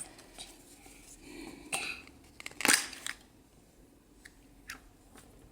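A chocolate surprise egg being broken open and unwrapped by hand: a few short crackles and snaps, the loudest two about two and three seconds in, then a couple of faint clicks.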